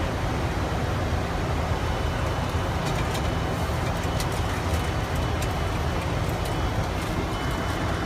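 Steady noise of an aircraft's engines and rushing air heard from inside the plane, constant in level, with a few faint ticks.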